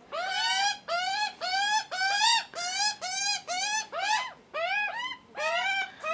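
Juvenile Australian magpies begging for food: a run of harsh, screaming calls, about two a second. Each call rises and then falls in pitch.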